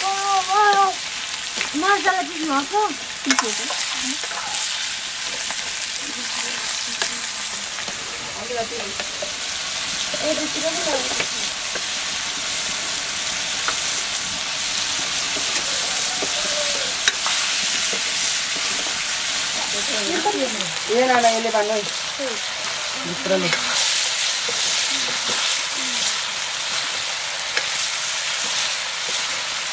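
Chunks of buffalo meat sizzling as they fry in an iron karahi, stirred and scraped with a metal ladle, with short clicks of the ladle against the pan.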